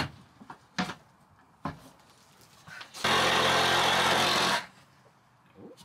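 Handheld power saw cutting plywood in one short burst of about a second and a half, starting about three seconds in. It is trimming the bump-out panel back toward the framing. A few light handling knocks come before it.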